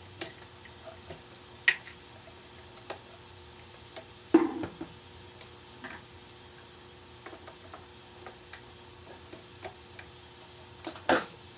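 Scattered small clicks and taps from handling a switch-outlet combination device while the red light wire is fastened to one of its terminal screws, with a few louder clicks, about 2, 4.5 and 11 seconds in.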